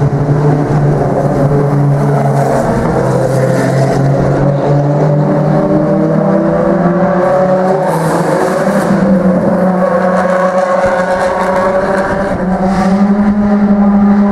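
Ferrari FXX K and 599XX V12 engines running at low revs as the cars roll slowly past one after another. The engine note holds a steady low pitch and rises a little near the end.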